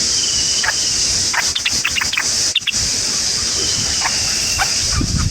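Birds chirping in short, sharp calls, with a brief trill twice, over a steady high-pitched insect drone.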